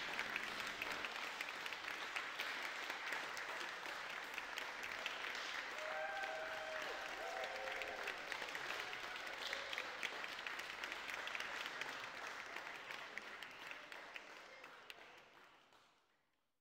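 Audience applauding, with a few short voices calling out partway through; the applause fades out near the end.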